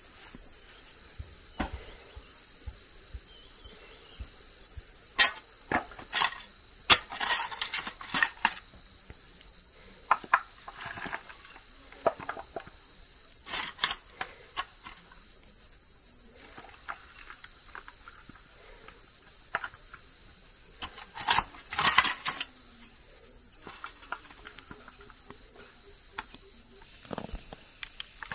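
Insects keep up a steady high-pitched drone throughout. Irregular sharp knocks and rustles come in clusters and are louder than the insects.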